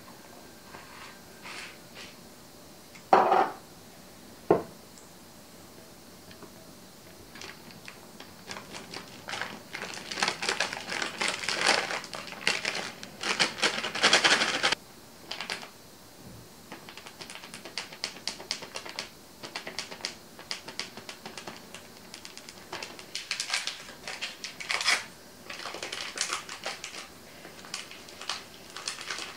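Kitchen handling sounds: two sharp knocks of bowl or utensil about three and four and a half seconds in, then long runs of rapid clicking and scraping while dry flour is scooped and weighed into a bowl.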